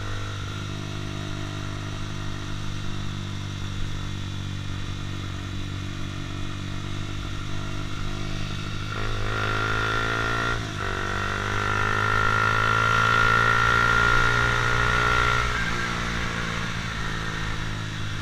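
Honda CBR150R's single-cylinder engine running while riding. About halfway through the engine pitch climbs, dips briefly, climbs again, then eases off a few seconds before the end.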